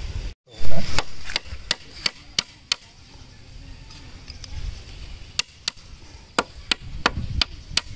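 A loud thump just after the start, then metal pliers clicking sharply against the bamboo frame and net edge in two quick runs of about three clicks a second.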